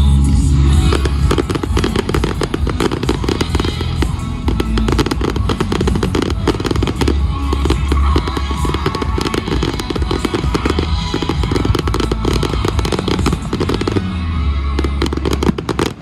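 Fireworks going off in a rapid, continuous string of bangs and crackles from about a second in, with music playing underneath.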